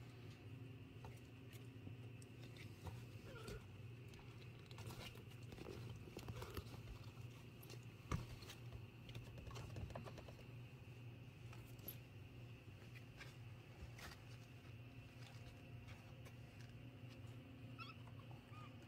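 Faint scratching and tapping of young kittens' claws on a plastic crate wall and the cloth beneath them, with one sharper knock about eight seconds in, over a steady low hum.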